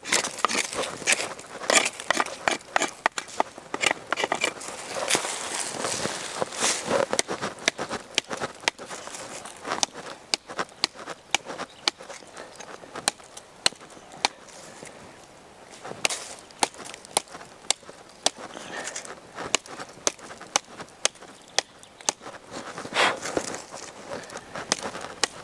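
Blind Horse Knives Bushcrafter, a thick flat-ground knife, chopping across a hardwood branch: a run of sharp knocks of blade into wood, several a second, with crackling of wood between them and a quieter stretch about halfway through.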